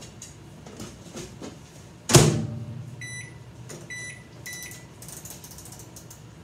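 Microwave oven door shut with a sharp knock about two seconds in, then three short high beeps from its keypad as the cooking time is set.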